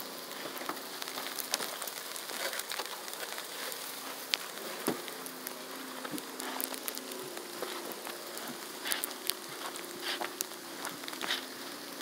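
Falling snow pattering with a steady hiss, dotted with scattered crunches and clicks from footsteps in the snow and from handling the phone. A faint low steady hum runs underneath.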